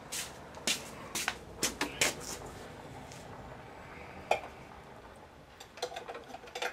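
Irregular sharp metallic clicks and clinks as a rusty, seized outboard throttle linkage and magneto plate are worked back and forth by hand, with a quieter stretch in the middle and a quick run of clicks near the end.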